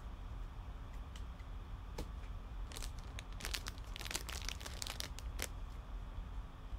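Thin plastic card sleeves crinkling as trading cards are slid in and handled, with a light click about two seconds in, then a dense run of sharp crackles for about three seconds.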